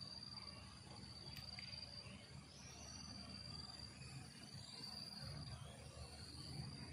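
Insects trilling in a steady high, thin tone that breaks off briefly a few times, over a low rumble.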